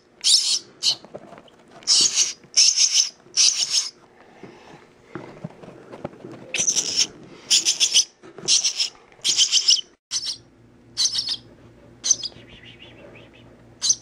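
Nestling songbird's begging calls while being hand-fed: loud, high-pitched chirps in quick runs of two to five, about three a second, with short pauses between the runs.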